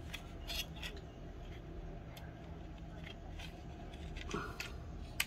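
Diecast toy cars being handled: scattered small clicks and scrapes over a low steady hum, with one sharper click near the end.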